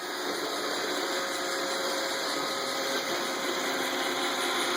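iRobot Roomba 770 robot vacuum running, a steady hum of its motors and brushes that swells over the first half second and then holds level.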